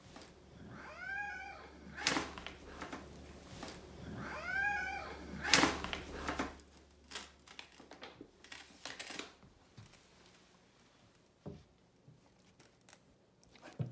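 Maine Coon cat meowing twice, about a second in and again about four and a half seconds in, each call rising and then falling in pitch. Between the calls come sharp clicks and rustles, the loudest at about two and five and a half seconds.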